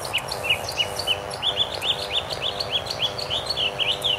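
Birds chirping: a fast series of short, high chirps that quickens after about a second and a half, over a faint steady drone.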